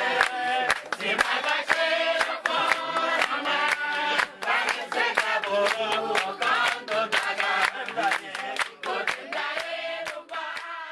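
A group of voices singing together with rhythmic hand-clapping, fading toward the end.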